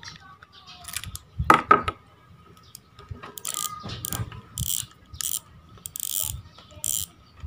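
Fugu Tora 4000 spinning reel, a Shimano Stella copy, being taken apart by hand: a loud knock about a second and a half in, then the drag knob being twisted off, its clicker ratcheting in short repeated bursts with each turn.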